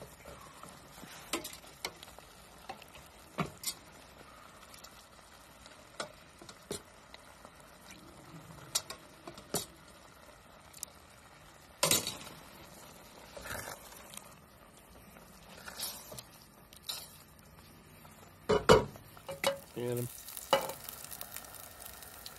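Silicone spatula stirring risotto in a stainless steel pot, with irregular scrapes and taps against the pot. Near the end come a few louder knocks and clanks of cookware on the stove grate.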